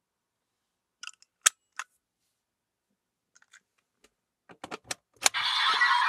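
Plastic clicks as a GP Raise Buckle toy is handled and fitted into a Bandai DX Desire Driver transformation belt, with a burst of clicks and one sharp click about five seconds in as it locks into the slot. The belt then starts its electronic sound effect.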